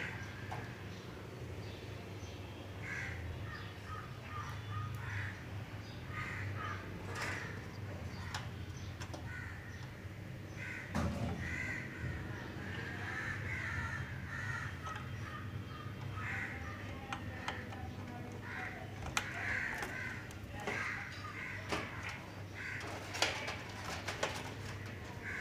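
Birds calling again and again in the background, with scattered clicks and knocks of cables and sheet metal being handled inside a computer case, over a steady low hum.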